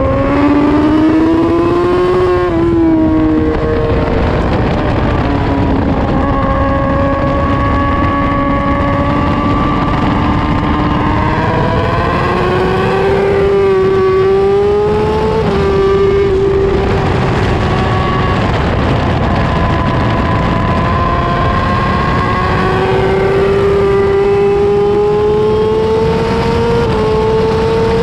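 2019 Kawasaki ZX-10RR superbike's inline-four engine at race pace, heard onboard over rushing wind. Its note climbs and falls with throttle and gear changes through the corners and straights.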